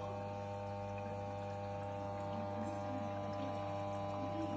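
LG front-loading automatic washing machine running mid-cycle: a steady electric hum with a higher-pitched whine held over it and faint water sounds inside the drum.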